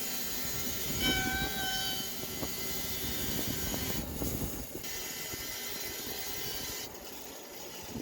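A saw mill's engine running and its blade cutting through a big spruce log, a dense steady mechanical noise. A brief high-pitched squeal comes about a second in.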